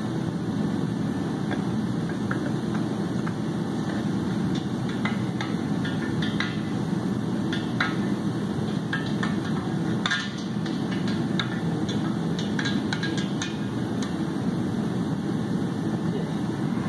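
Light metal clicks and taps from hand tools working a cam bearing installer in an engine block's cam bore, coming in an uneven run through the middle. A steady low machinery hum sits under them.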